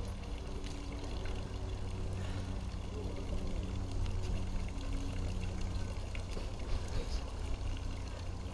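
Steady low rumble with a hum of a few pitches that comes and goes, under a hiss like pouring or trickling water.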